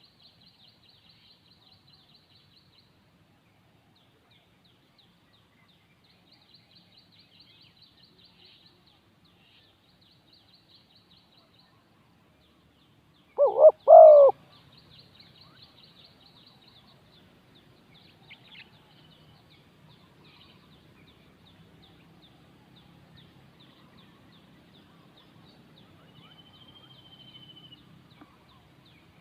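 Spotted dove giving one short, loud, three-part coo about halfway through, over faint high trilling. A thin whistle from another bird comes near the end.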